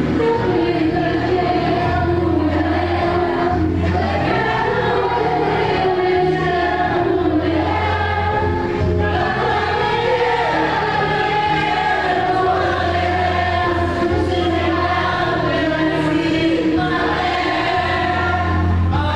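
A mixed group of young men and women singing a song together in chorus, with long held notes.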